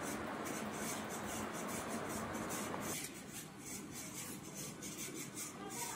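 Faint steady background noise with no clear event; its middle range drops away about three seconds in.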